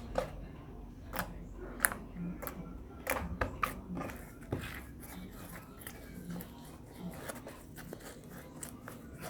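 Handling noises: scattered light clicks and taps, bunched in the first half, over a faint steady low hum.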